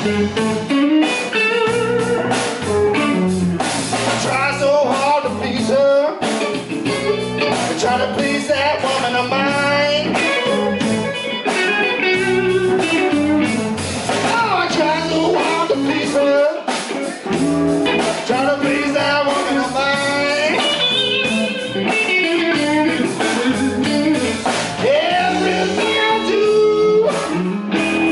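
Live blues band playing: electric guitar lead lines with bent, wavering notes over electric bass and a drum kit.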